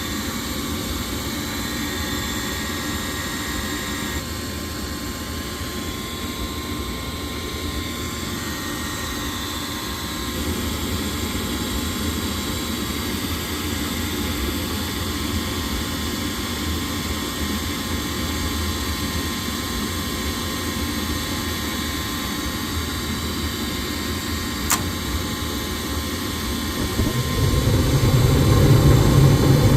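Gas furnace running on a test cycle after a flame sensor replacement: a steady fan-motor hum throughout, a single sharp click about 25 seconds in, then a louder low hum building near the end.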